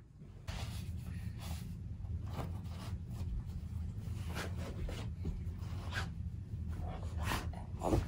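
Irregular scratching and rubbing on fabric bedding, short scrapes every fraction of a second over a steady low hum, starting about half a second in.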